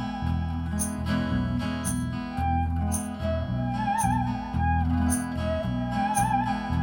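Live band playing an instrumental solo: a lead melody with wide vibrato over a pulsing bass line and percussion striking about once a second.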